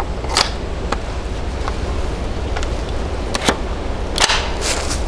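Sharp metallic clicks and clacks of a Hi-Point 995 carbine being handled and made ready to fire, a handful of them spread out, the loudest about half a second in and just after four seconds.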